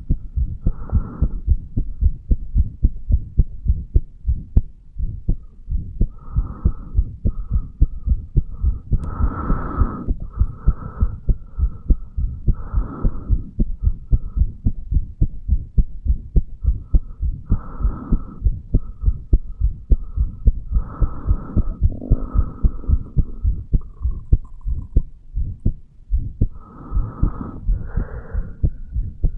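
Human heartbeat heard through the chest over the mitral valve area: a steady run of low lub-dub thumps. A higher hiss comes and goes over the beats.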